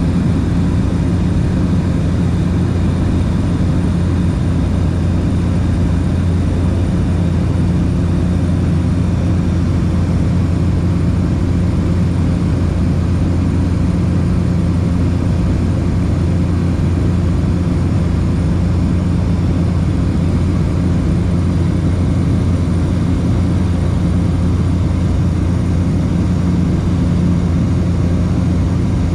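Light aircraft in cruising flight: the engine and propeller drone steadily and evenly, heard from inside the cabin.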